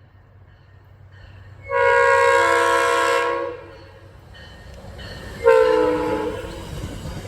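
Locomotive multi-chime air horn sounding one long blast and then a shorter one, each a chord of several steady notes, as a passenger train approaches; its low rumble grows louder near the end.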